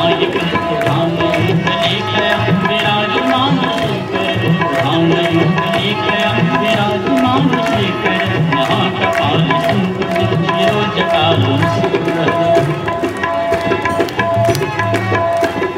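Indian devotional music led by tabla, playing a steady beat under held melodic notes.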